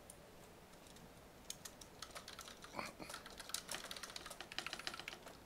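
Computer keyboard typing: rapid runs of key clicks starting about a second and a half in.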